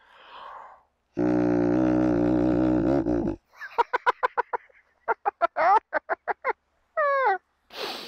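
A squash-leaf-stem horn blown in one long, steady, buzzing honk of about two seconds, starting a second in. It is followed by a run of short, choppy bursts of sound.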